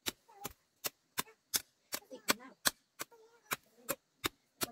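A garden hoe chopping into the ground with quick, evenly spaced sharp strikes, about three a second.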